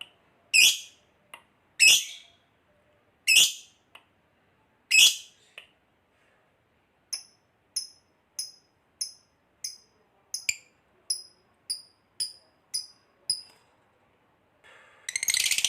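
Recorded birds calling, from a training mix of canary, lovebird and house sparrow: four loud, shrill calls in the first five seconds, then a steady run of short high chirps at about one and a half a second. Near the end a fast, continuous, loud trill begins.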